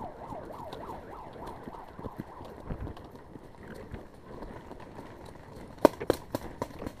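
Running footsteps crunching through dry leaves, twigs and brush, with a wavering siren fading out in the first second. Near the end come a few sharp, loud cracks, the loudest sounds of the stretch.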